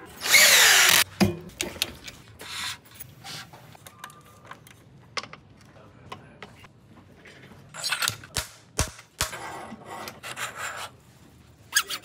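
Cordless drill/driver spinning the bolts of a disc brake rotor into a wheel hub for about a second at the start, its motor whine rising and falling. Then scattered clicks and knocks of hand tools, and near the end a run of rasping hacksaw strokes.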